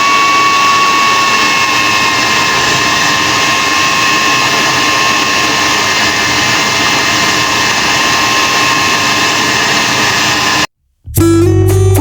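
Electric blender motor running at full speed, grinding a thick paste of boiled beef, chana daal and egg in its jug. It makes a loud, steady whine whose pitch sinks slightly in the first couple of seconds as it takes the load, then cuts off abruptly near the end.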